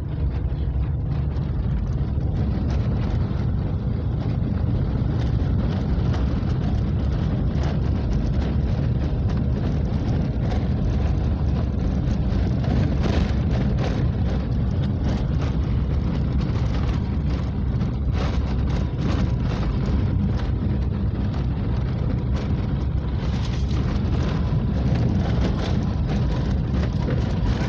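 Steady low rumble of a car driving along a road, with light knocks and rattles now and then.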